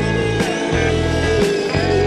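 Background rock music with sustained guitar-like notes over a bass line and a sharp drum hit about once a second.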